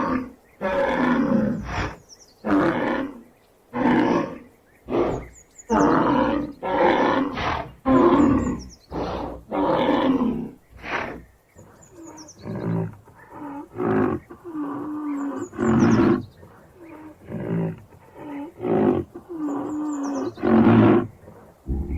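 Rhinoceros calling: a long series of harsh, loud calls about one a second, shorter and a little weaker in the second half, a few with a held, pitched moan.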